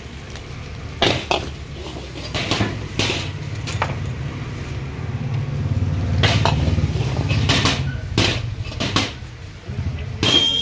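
Long metal ladle clanking and scraping against a large metal wok as fried rice is stir-fried, with sharp irregular clanks, about a dozen in all, over a steady low rush from the gas burner, which swells in the middle.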